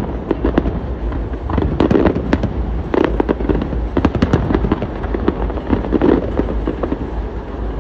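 Aerial fireworks shells bursting in a rapid, irregular series of bangs and crackles over a steady low rumble.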